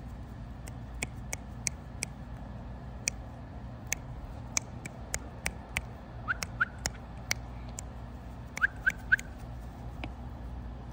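Chickens foraging in grass: scattered sharp clicks and a few short rising chirps, two about six seconds in and three louder ones near nine seconds, over a steady low rumble.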